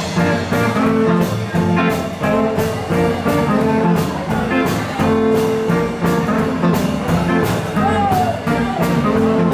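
Live blues band playing an instrumental break between sung verses: electric and acoustic guitars over a steady beat.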